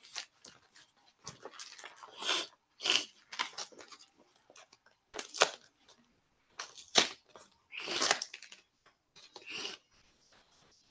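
A paper packet being torn open and its papers handled: a run of irregular tearing and crinkling rustles that fade out near the end.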